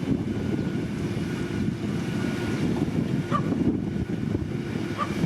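Heavy road construction machinery running steadily, a diesel engine's low rumble.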